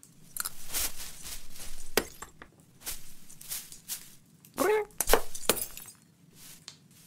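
Cartoon sound effects of a cat scrambling inside a decorated Christmas tree: branches and tinsel rustling in short bursts, with glass baubles clinking. A brief wavering cat mew comes just past the middle, followed by the loudest rustles.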